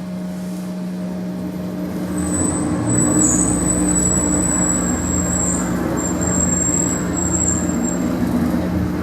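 Passenger lift travelling down: a steady machine hum with a thin high whine, and a low rumble that joins about two to three seconds in.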